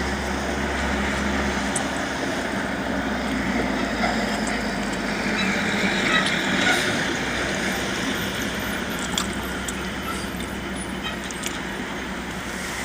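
Steady vehicle noise heard from inside a car, a low hum under an even rush, swelling a little around six seconds in.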